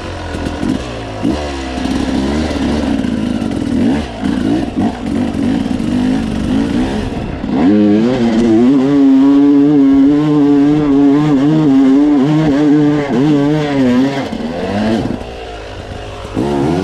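Dirt bike engine revving up and down over rough ground, then held at high revs for about six seconds on a steep hill climb, its pitch wavering as the bike bounces and loses traction, before the throttle eases off near the end.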